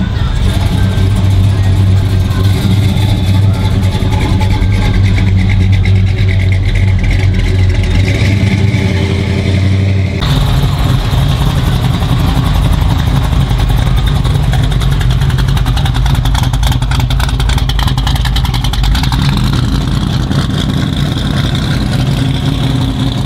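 A Dodge Charger's engine running in a low, steady rumble as the car drives slowly; about ten seconds in the sound cuts to a Chevrolet Nova's engine, which rises in pitch as the car accelerates away.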